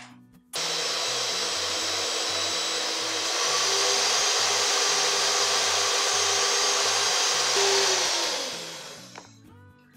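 Electric stand mixer beating egg whites with sugar: the motor starts abruptly, runs with a steady whirring whine, gets louder about three seconds in, then is switched off and spins down near the end.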